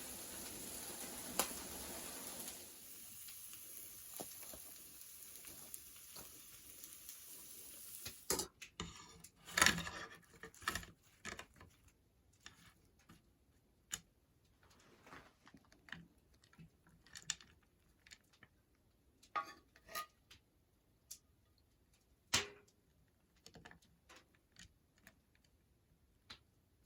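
Scattered clinks and knocks of cooking utensils on pots and pans. For the first eight seconds or so a steady hiss runs underneath, then stops suddenly.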